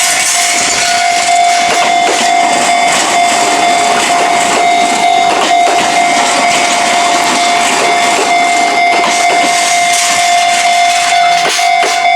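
A Fujikyu line train passing over a level crossing, its wheels clattering over the rails in a dense, steady rush of noise. The crossing's warning bell sounds over it as a steady tone throughout, briefly breaking near the end.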